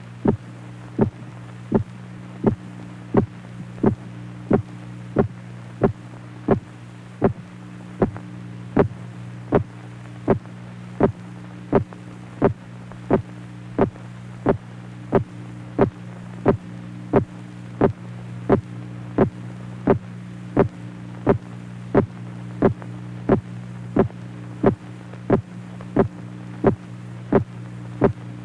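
A steady low electronic hum with a higher tone cutting in and out, under a sharp, regular pulse of about three beats every two seconds.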